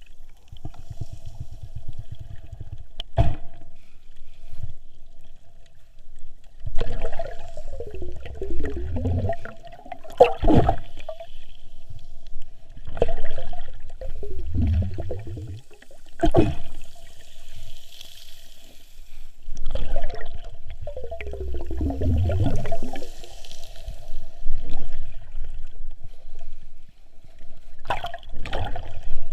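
Water sloshing and gurgling around a snorkeler's camera, in surges about every six or seven seconds with a few sharp knocks between them.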